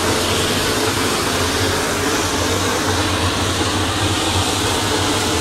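Helicopter's turbine engine and rotor running steadily on the ground: a loud, even rushing noise with a low hum underneath.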